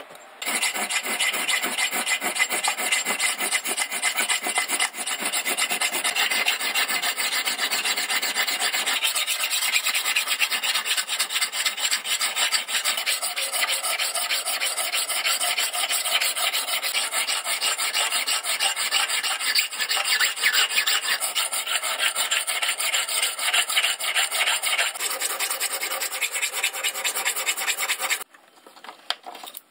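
Hand file scraping across a steel axe head in quick, repeated strokes, reshaping the bit. The filing stops near the end.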